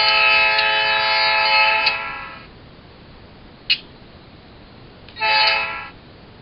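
Diesel air horn played by the ESU LokSound decoder of an HO scale GE U28C model through its speaker. A long blast is already sounding and ends about two and a half seconds in, then a short blast comes near the end. A few sharp clicks fall in between.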